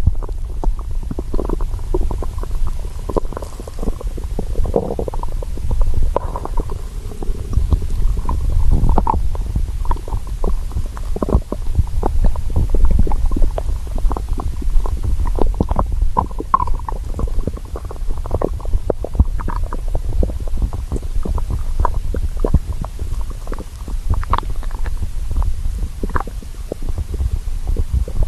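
Hungry stomach growling and gurgling: a steady low rumble with many short gurgles and pops all through, now and then a brief squeaky tone.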